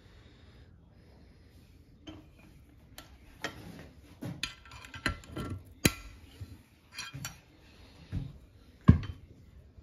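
Metal clicks and clinks of a hex key and bolt working against the metal pump head of a WAP 5100 Turbo pressure washer held in a vise: about a dozen irregular taps, starting about two seconds in, the loudest near the end.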